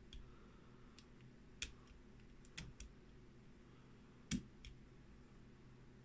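A handful of faint, irregularly spaced clicks from the number wheels of a Master Lock Excell combination padlock being turned by hand under tension, while the combination is decoded by feel. The loudest click comes a little past four seconds in.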